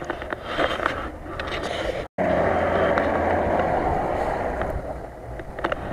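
Nissan Patrol 4x4's engine working as it churns through deep mud: quieter at first, then loud and close after an abrupt cut about two seconds in.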